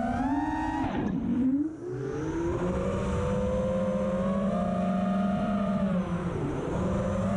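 FPV quadcopter's brushless motors and propellers whining, the pitch rising and falling with the throttle, with sharp drops about a second in and again near the end.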